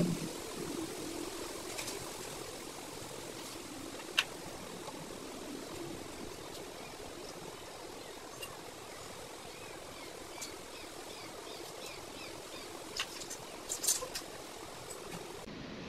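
Quiet background ambience: a steady faint hiss with faint chirping behind it, and a few sharp clicks, one about four seconds in and a small cluster near the end.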